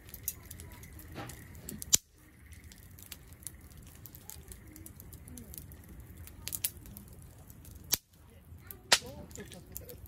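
Wood campfire crackling in a metal fire stand, with scattered sharp pops from the burning logs, the loudest about two seconds in and near the end.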